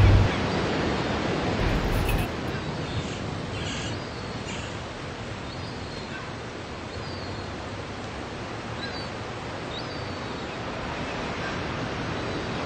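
Steady outdoor noise of wind and water, with a few short, faint bird chirps in the middle.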